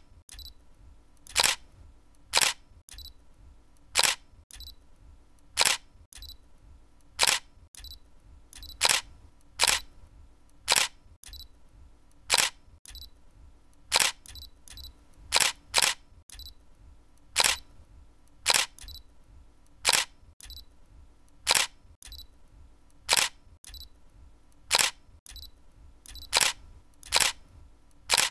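Camera shutter clicks, each a single sharp snap, repeating about once a second at uneven intervals.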